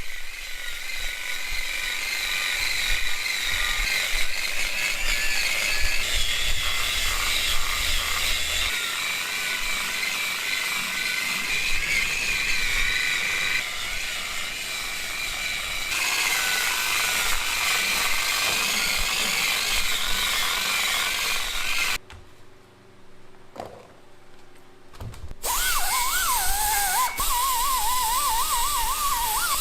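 Handheld power tool running steadily with a wavering whine. It cuts out for about three seconds near three quarters of the way through, then starts again.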